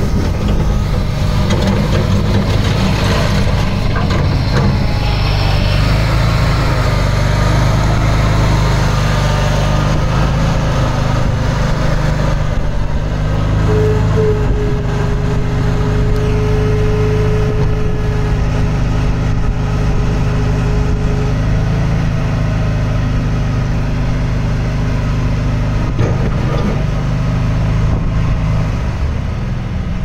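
1992 Bobcat 440B skid steer loader engine running steadily as the machine drives and works its loader arms. A steady whine joins it for several seconds about halfway through.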